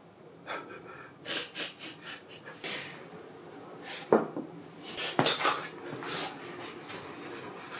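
Beer poured from a can into a mug in short glugging, fizzing spurts, the mug filling mostly with foam. Two sharp clinks of can or glass about four and five seconds in.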